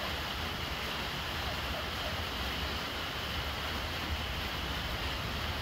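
Steady rain splashing onto the surface of a brimming water jar, with rainwater running from a plastic downpipe into it: an even, unbroken hiss.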